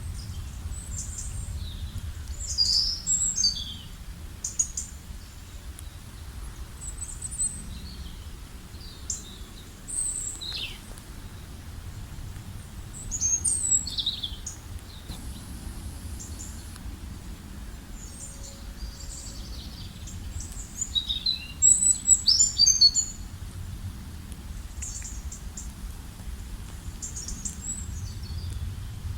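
Songbirds chirping and singing on and off, short high calls with the busiest bursts about a third of the way in and again past the two-thirds mark, over a steady low background rumble.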